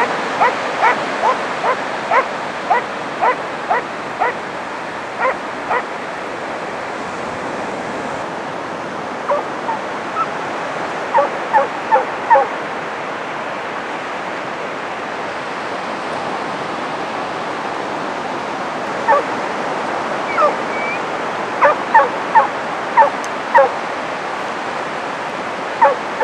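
Huntaway dogs barking in repeated runs, about two barks a second, with pauses of several seconds between runs, over the steady wash of surf breaking on the beach.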